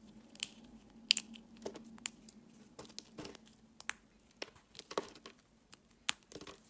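Thin, brittle flakes of bar soap being crumbled and snapped between the fingers: irregular sharp crackles and crunches, loudest about a second in and again near the end.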